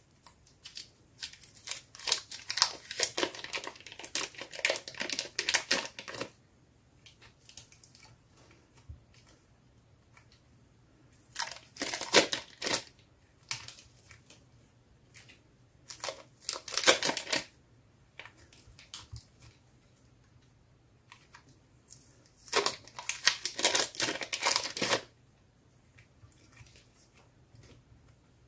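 Clear plastic wrap crinkling and rustling as blocks of soft modelling clay are peeled out of it by hand. The sound comes in four bursts: a long one of about five seconds, then three shorter ones several seconds apart.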